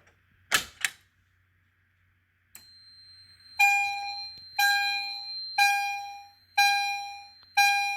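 EST Genesis chime strobe sounding in alarm: a ringing chime struck about once a second, each stroke dying away, five strokes in all. A high steady tone starts about a second before the first chime and runs on under them. Two short noises come near the start.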